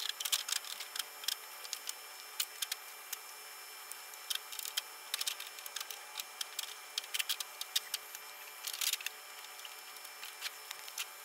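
Irregular light clicks, taps and brief scrapes as the fiberglass body shell and metal seat pan of a John Deere RX95 riding mower are handled and worked loose by hand.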